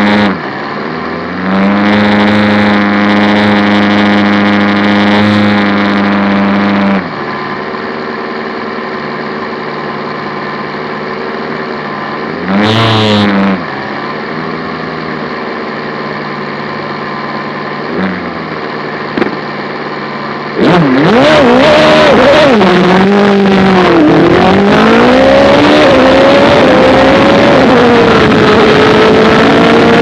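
Lola FA99 formula racing car's engine, heard from the cockpit, held at steady raised revs, then idling with a quick blip of the throttle. About two-thirds of the way through it launches at full throttle and accelerates hard, the revs climbing and dropping sharply with each upshift.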